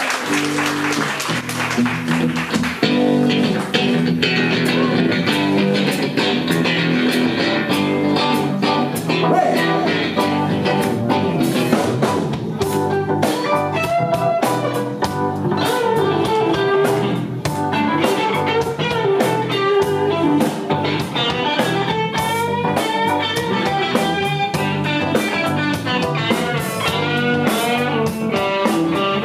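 Rock band playing live: electric guitar lead over bass and drum kit in an instrumental passage, with the guitar's notes bending up and down from about halfway through.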